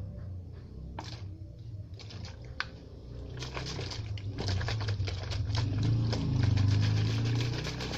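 Yellow-tinted water sloshing in a closed plastic bottle shaken rapidly, after a few separate knocks of the bottle being handled; the fast, even shaking starts about three seconds in and runs on past the end.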